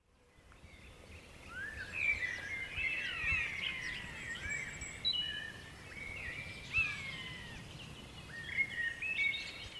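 Woodland birdsong: several birds chirping and whistling in quick, overlapping phrases, fading in over the first couple of seconds.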